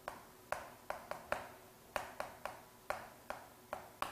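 Chalk tapping and scratching on a blackboard as Korean characters are written: about a dozen short, sharp taps at uneven spacing, one for each stroke.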